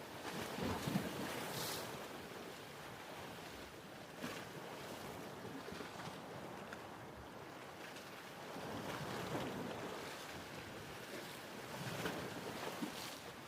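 Ocean waves washing in, a steady rush of water that swells every few seconds, with splashes as each wave comes in.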